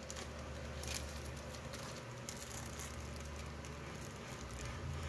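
Thin clear plastic bags crinkling and rustling as they are handled, with scattered crackles.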